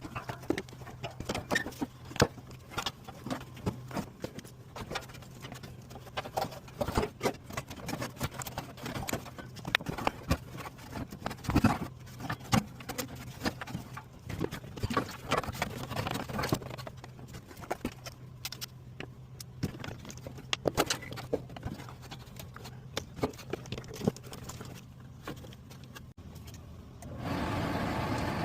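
Many irregular clicks, clinks and knocks of tools and metal parts being handled during hand work on an HVAC blower motor, over a steady low hum that stops near the end. A louder steady rushing noise starts about a second before the end.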